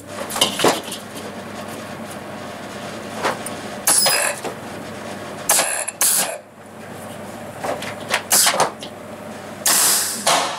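Steel tube legs clinking against a kettle grill's bowl as they are set in place, with short bursts of arc-welding crackle as the legs are tack-welded on, the last and longest near the end.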